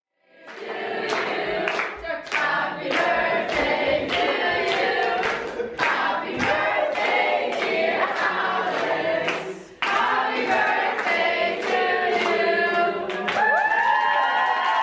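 A group of young people singing a birthday song together, clapping on the beat about twice a second. A high sliding note rises and falls over the singing near the end.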